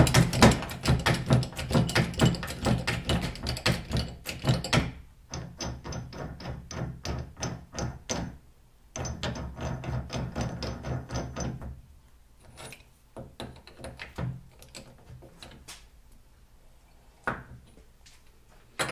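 Hydraulic bottle jack being pumped by its steel handle: rapid, regular clacking and rattling of the handle in its socket as the ram rises, in three runs over the first twelve seconds or so, then only a few scattered, quieter clicks.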